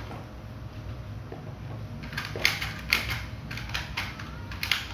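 Sharp plastic clicks and taps from handling a blue plastic toy revolver and loading a suction-cup dart into it, about eight in an irregular string starting about two seconds in.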